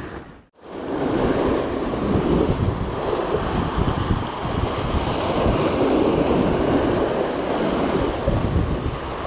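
Sea waves washing and splashing against a concrete seawall, with wind buffeting the microphone. The sound drops out briefly about half a second in, then runs on steadily.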